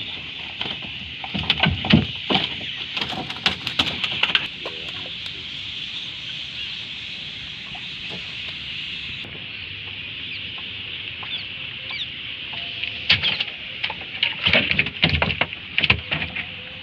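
Two spells of rapid knocking and slapping inside a small fishing boat, from fish freshly taken out of a gill net flapping against the hull, over a steady high-pitched background chirring.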